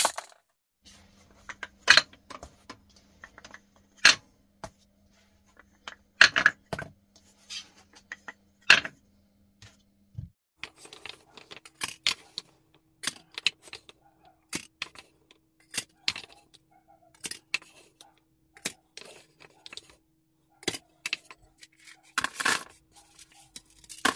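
Small hard objects clicking and clattering: glass gems against a stone mortar, then balls, glass gems and small cubes dropped into plastic cups. Irregular sharp clicks and short rattles, with a faint steady hum beneath.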